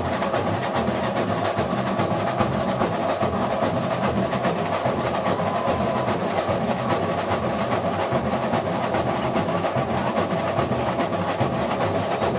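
Samba school bateria playing samba: a large corps of drums, with big surdo bass drums under a dense, steady percussion rhythm.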